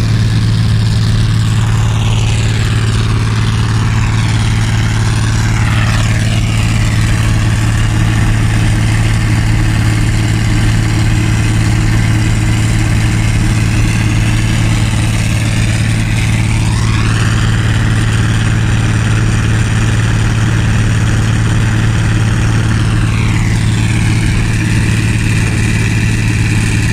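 Zmaj 161 combine harvester running steadily while harvesting wheat, its engine and threshing machinery making a loud, even drone with a strong low hum.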